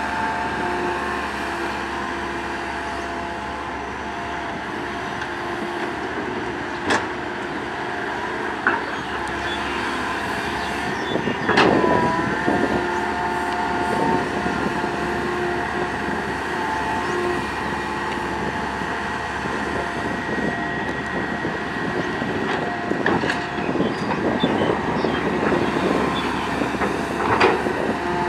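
Komatsu PC130 hydraulic excavator working, its diesel engine running steadily with a note that shifts now and then as the hydraulics take load. Scattered clanks and knocks of the bucket and soil come through, the loudest about twelve seconds in, where a load of dirt drops into the steel bed of the dump truck.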